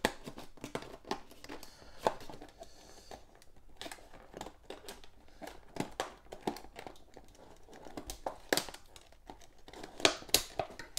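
Scissors cutting through a stiff, sealed plastic blister pack: irregular sharp snips, with the plastic crackling and crinkling as it is cut and bent open.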